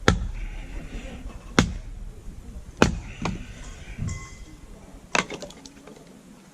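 Firewood being split by hand: a series of about six hard wooden knocks, irregularly spaced about a second apart, with a short rattle of small clicks after the last blow.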